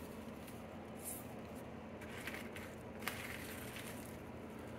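Faint rustling and crunching of a gloved hand moving bark-chip mulch and gritty potting mix in a plant pot, a few brief scratches over a low steady hum.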